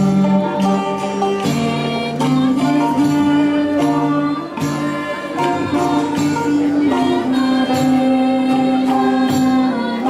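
Greek folk band playing: a clarinet carrying the melody in held notes over bouzouki and oud, with a frame drum keeping a steady beat and voices singing along.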